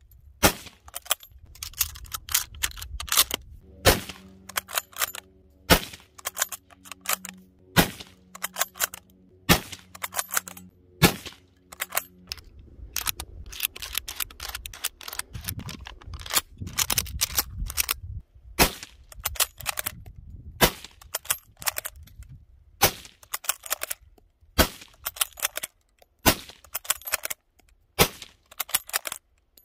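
Rifle shots from French 8mm Lebel service rifles, one after another about every one and a half to two seconds. Between them come the sharper, smaller clacks of the bolt being worked and cartridges being loaded.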